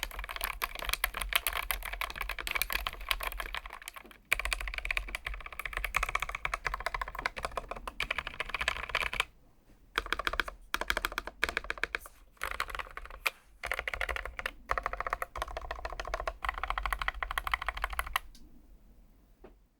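Typing on a Keychron K1 Max low-profile mechanical keyboard with low-profile Gateron switches: fast runs of key clacks in bursts, with a short break about nine seconds in, trailing off near the end.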